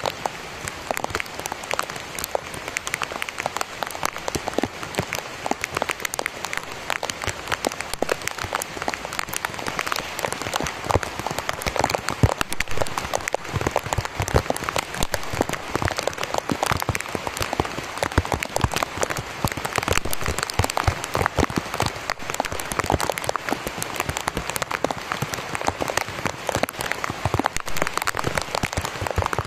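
Heavy rain falling steadily on dense vegetation and ground, a thick patter of countless drops.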